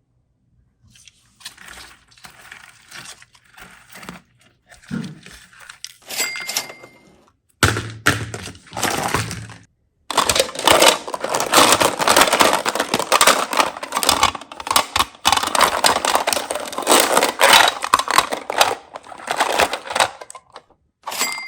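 Handling and unwrapping of Kinder Surprise eggs and toy packaging: foil and plastic crinkling and tearing, with small clicks and knocks of plastic. The sounds are soft and sparse at first, then dense and continuous for the second half.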